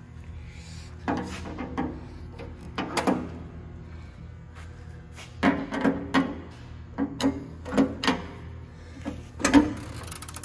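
Metal clanks and clicks of a horizontal bandsaw's sheet-metal wheel cover being unlatched and swung open, in several knocks with short ringing; the loudest comes near the end.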